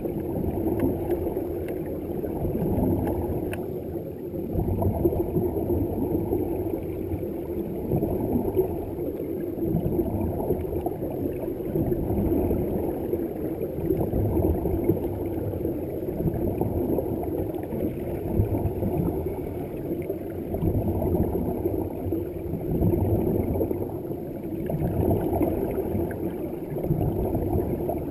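Muffled underwater noise picked up by a submerged camera: a low, even rumble with the rushing and gurgling of air bubbles from divers' breathing gear, swelling and fading every few seconds over a faint steady hum.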